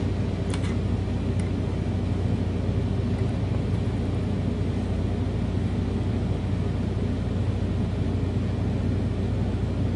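Steady low hum with a background hiss, unchanging throughout, and two faint clicks about half a second and a second and a half in.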